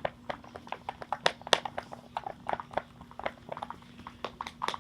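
Slime mixture being stirred in a container, making irregular sticky squelches and clicks.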